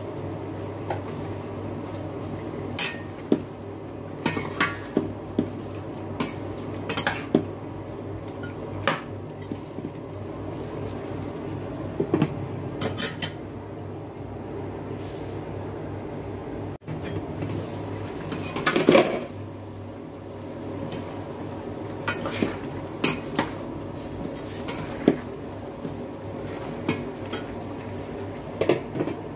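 Metal spatula clanking and scraping against a stainless steel pot as chicken pieces are stirred, with a glass pot lid set on and lifted off. Scattered sharp knocks sound over a steady low hum.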